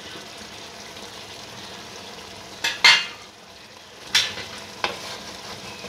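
Fish korma gravy sizzling and bubbling steadily in a metal wok over high heat, with a few sharp clinks against the pan, the loudest nearly three seconds in.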